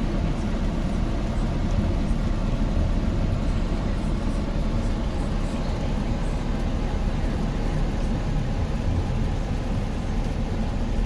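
Steady road and engine noise inside a car's cabin while driving.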